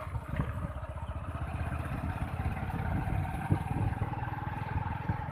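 Motorbike engine running while riding along, its note rising slowly from about a second in, over a steady low road rumble.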